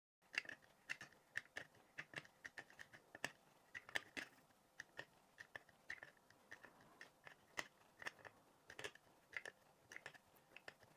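Piston of a 1998 Honda Civic Type R rear brake caliper being screwed back into its bore with a tool set in the piston face's slots: faint, irregular metal clicks and small scrapes, a few a second.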